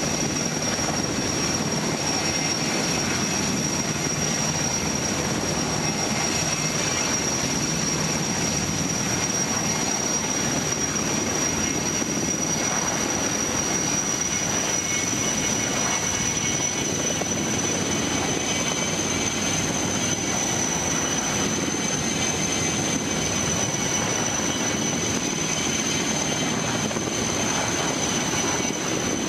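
Heavy-lift crane helicopter hovering, its rotor and engines making a steady, unbroken drone with a high whine over it, heard from inside a car.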